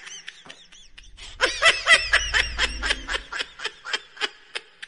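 People laughing in quick, high-pitched bursts, swelling about a second and a half in and trailing off near the end.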